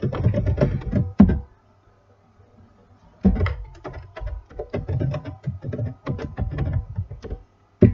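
Typing on a computer keyboard: rapid runs of key clicks with dull thuds, a short burst, a pause of about two seconds, then a longer run.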